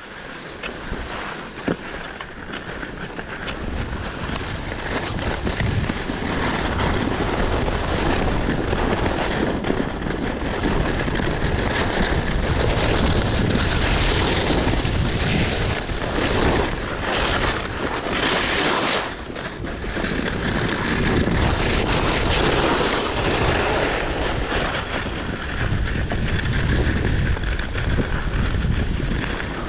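Skis hissing and scraping over packed snow with wind buffeting the microphone during a downhill ski run. The noise builds over the first few seconds as speed picks up, with a brief sharper hiss about two-thirds of the way through.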